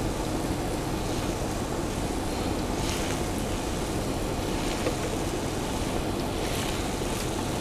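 Tomato-and-pepper broth boiling hard in a cast-iron pot: a steady bubbling.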